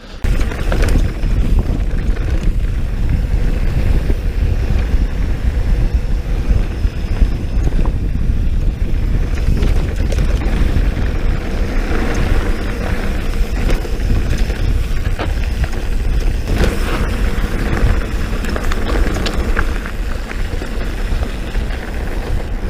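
Wind buffeting an action camera's microphone as a mountain bike rolls fast down a gravel fire road. There is a steady low rumble, with tyre noise and a few sharp clicks from the bike rattling.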